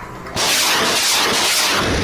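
Rocket-launch sound effect: a loud hiss bursts in about a third of a second in and keeps going, with a low rumble joining near the end.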